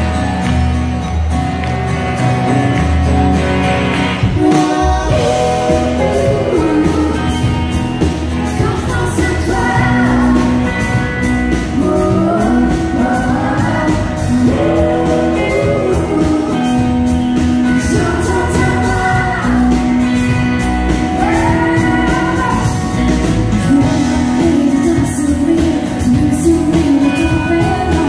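Live country band playing a song: electric and acoustic guitars and drums, with a singer's voice carrying the melody throughout.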